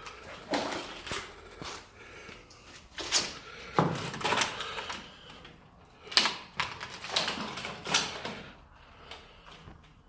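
Footsteps and rustling of someone walking, in irregular clusters of crunching steps with short pauses between.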